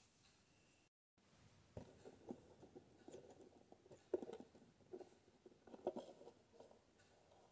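Scissors cutting down the side of a thin cardboard box: faint, irregular snips and rasps, the loudest about four and six seconds in.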